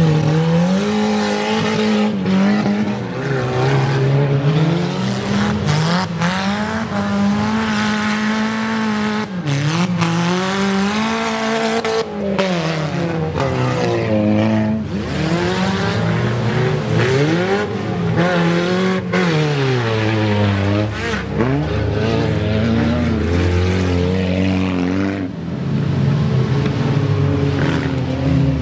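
Racing wreck car's engine revving hard, its pitch climbing and dropping back again every two to three seconds as it accelerates and lifts off.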